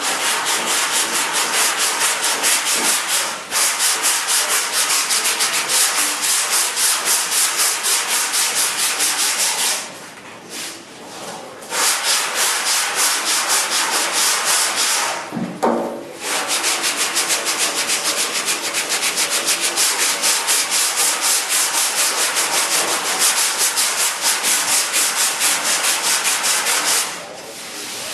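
Sandpaper rubbed back and forth by hand in quick, even strokes, a rasping sound that pulses with each stroke. It breaks off twice for a moment and stops shortly before the end.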